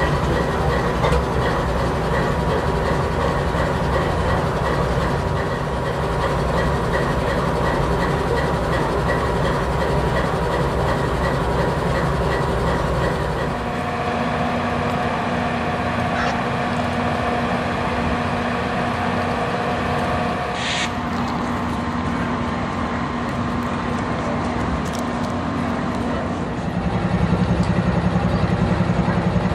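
Canadian Pacific Holiday Train's diesel locomotives and cars running by, a continuous train rumble with steady tones over it. The sound changes about halfway through, and near the end a louder low throbbing engine sound sets in.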